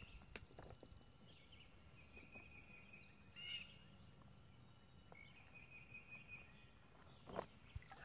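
Near silence: faint bird calls outdoors, with a few soft knocks and splashes as a plastic water pouch is dipped and filled in a shallow creek.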